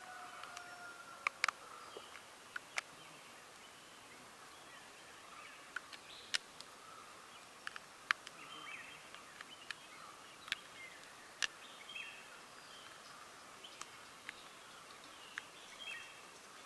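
Scattered small sharp clicks of a screwdriver and metal parts being handled as the screws are taken out of a spinning reel's body, over a faint hiss with faint bird chirps.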